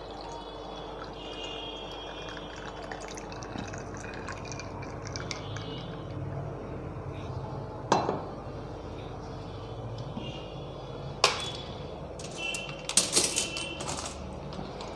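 Brewed tea poured slowly from a steel mug into a glass of ice, a faint steady trickle. About eight seconds in the mug knocks down onto the wooden counter, followed later by a sharper knock and a few ringing clinks near the end.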